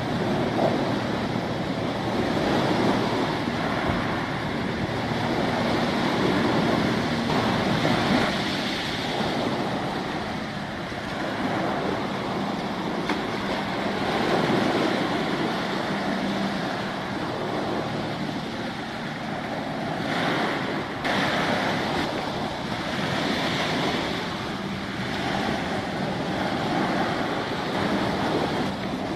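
Waves washing and breaking along the shore, swelling and easing, with wind gusting on the microphone and a faint low engine drone underneath.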